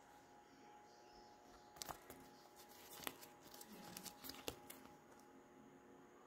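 Faint handling noise of polyester shorts and their cardboard hang tag being turned over by hand: soft rustles with a handful of sharp clicks and ticks, clustered from about two to five seconds in.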